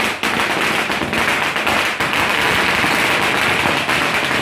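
A long string of firecrackers going off in a loud, dense, unbroken crackle.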